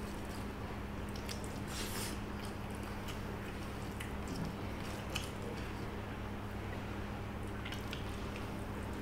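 Fingers mixing soft rice with fish curry and dal on a stainless steel plate: soft squishing with a few light clicks against the plate, over a steady low hum.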